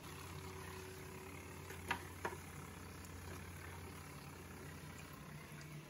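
A steady low hum, with two short, sharp knocks about two seconds in.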